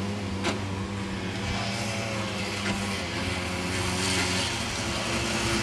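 Snowmobile engines running with a steady drone. About four seconds in, a louder hiss joins as a snowmobile comes close.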